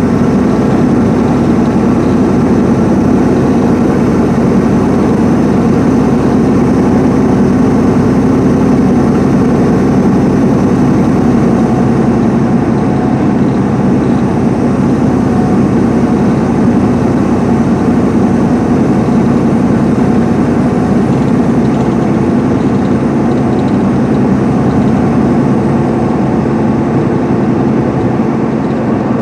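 The Cummins ISM diesel engine of an MCI D4500CL coach running steadily at highway speed, with road noise, heard from inside the coach.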